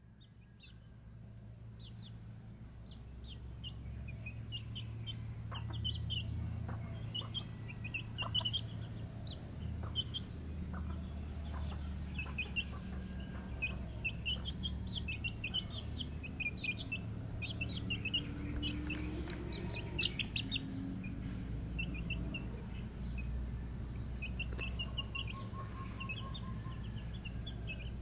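Young chicken chicks peeping: many short, high-pitched cheeps in quick irregular runs, fading in over the first few seconds.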